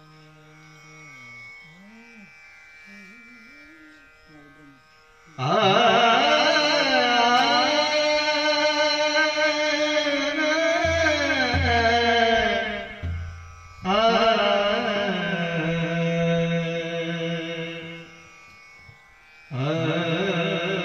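Marathi devotional bhajan: a soft held instrumental drone, then about five seconds in a man's voice comes in loudly with long, ornamented sung phrases, pausing twice. A few deep pakhawaj strokes sound under the singing near the middle.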